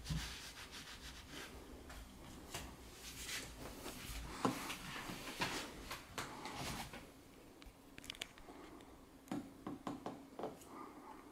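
Handling noises: a string of soft rubs, scrapes and light knocks as a spring-mounted mouse toy on its base is moved and set on a carpeted cat tower. The sounds are densest in the first several seconds, then thin out to a few scattered clicks.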